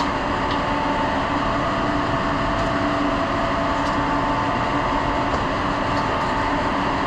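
Steady machinery hum in a printing pressroom, an even drone with a low and a mid pitched tone held throughout, with a few faint light clicks.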